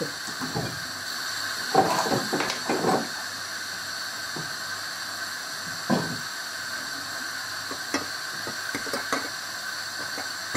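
Scattered knocks and light clatter of a stainless steel box grater being handled and set down on a plate on a wooden cutting board, over a steady hiss.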